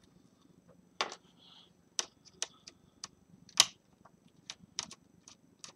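Small screwdriver working screws out of a laptop's display lid: a run of scattered sharp clicks and ticks, the loudest about three and a half seconds in.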